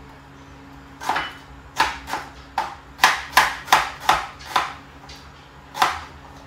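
Kitchen knife chopping onion on a plastic cutting board: about ten sharp strokes at an uneven pace, packed together after the first second, with a single last stroke near the end.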